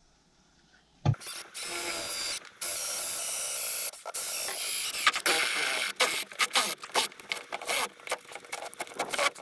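A power tool cutting away wooden roof battening. It starts about a second in and runs in stops and starts, with several short pauses.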